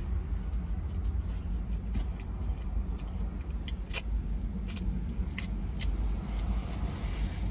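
Close-up eating sounds: a person chewing a lemon pepper chicken wing, then several sharp wet smacks from licking her fingers about halfway through. A steady low rumble runs beneath.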